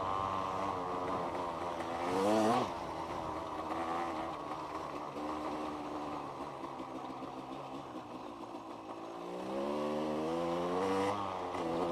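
1990s KTM two-stroke dirt bike engine under way, its pitch climbing with the throttle for the first couple of seconds, dropping off sharply, running lower for a while, then climbing again near the end.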